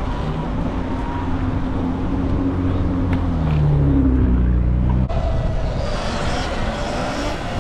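Road and wind rush from riding through city traffic, with a nearby car's engine accelerating, its pitch rising and loudest about four seconds in. The sound changes abruptly about five seconds in, leaving only the rushing noise.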